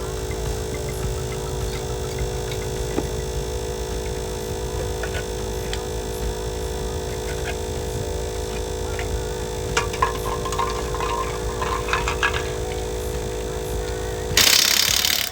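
Air compressor running steadily with an even hum, inflating a rusty spare tire that was completely flat. A few light clicks come partway through, and a loud burst of noise about a second long comes near the end.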